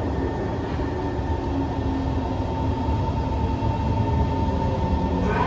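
Kawasaki C151 metro train running through an underground tunnel, heard from inside the car: a steady low rumble of wheels on rail with a steady whine on top.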